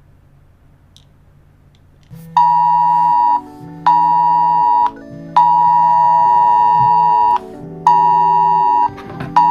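Electronic keyboard music: after about two seconds of faint low hum, loud sustained chords start, held for one to two seconds each with brief breaks between, the last one beginning right at the end.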